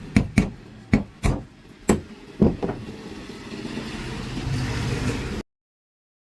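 Several sharp metallic knocks, then a mixer grinder's motor running steadily and building slightly before cutting off abruptly.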